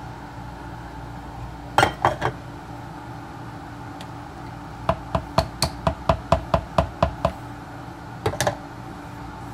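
Sharp clicks and knocks as a blender jar and its lid are handled: a couple about two seconds in, a quick run of about a dozen at roughly five a second midway, and two more near the end, over a low steady hum.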